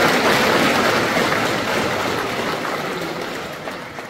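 Audience applauding, loud at first and gradually dying down.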